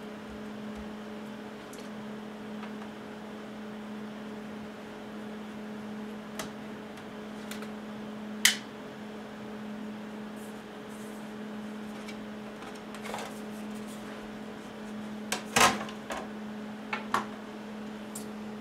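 Small screwdriver and tiny screws clicking and tapping against a MacBook Pro's aluminium bottom case as the case screws are taken out, over a steady low hum. Sparse sharp clicks, one loud one about eight seconds in and a short cluster near the end.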